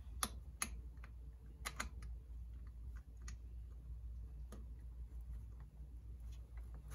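A handful of light clicks and taps from starting a screw into the ATV's shift guide with an Allen key, most of them in the first two seconds, over a low steady hum.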